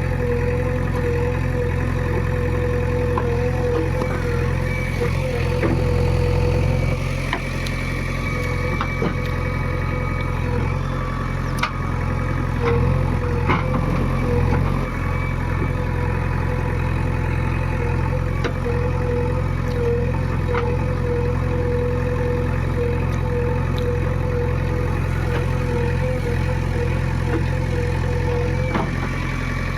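JCB excavator's diesel engine running steadily, with a constant whine over the engine note and a few sharp knocks and clanks now and then.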